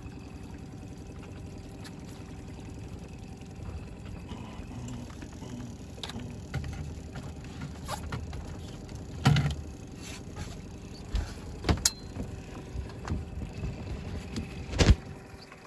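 Outboard motor running steadily at trolling speed, a constant low hum under scattered clicks and knocks of handling on the boat. The two loudest knocks come about nine seconds in and near the end.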